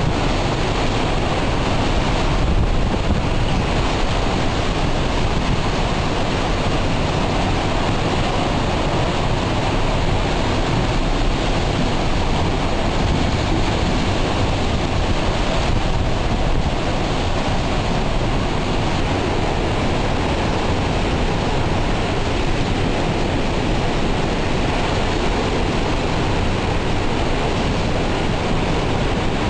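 Hurricane-force wind blowing steadily through trees, with heavy wind buffeting on the microphone.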